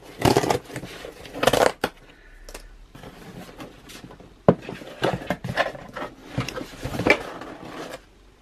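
Cardboard shipping box being opened by hand: the cardboard scrapes and tears, goes quiet for a couple of seconds, then gives a sharp snap about halfway through, followed by more rustling as the flaps are folded back.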